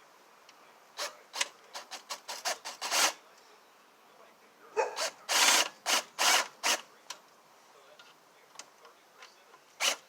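Ratchet wrench clicking in short strokes as the pressure washer pump's mounting nuts are run down: a quick series of light strokes, then a louder cluster of longer strokes about halfway through.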